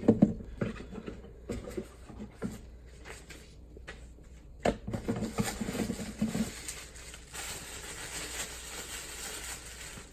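Handling noises from unboxing: a few knocks and clicks as things are set down, then rustling and scraping from about five seconds in as a small cardboard box is opened and its packaging handled.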